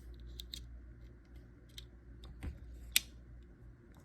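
Small metal clicks and snips from the scissors of a Leatherman Surge multi-tool being opened and closed to test them, with a handful of separate clicks and the sharpest one about three seconds in.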